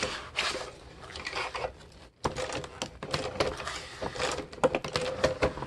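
Paper pages rustling with light metal clicks from the twin-loop wire binding as a freshly wire-bound book is handled and its pages turned.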